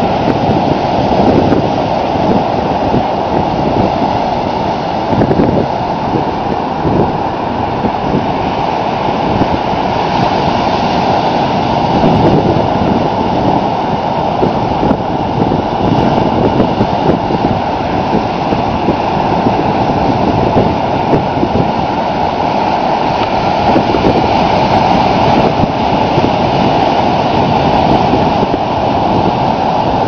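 Ocean surf breaking on a sandy beach: a steady, loud wash of waves with wind noise on the microphone.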